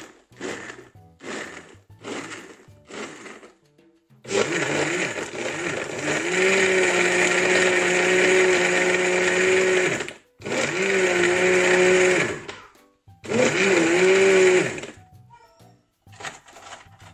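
Commercial grinder blender crushing ice, its motor running in three bursts starting about four seconds in: one run of about six seconds, then two shorter runs of about two seconds each with brief stops between them. The motor's pitch dips and recovers at the start of each burst.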